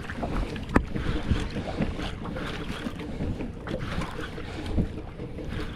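A fishing boat's engine runs steadily under wind buffeting the microphone. There is a sharp knock just under a second in and a few lighter knocks after it.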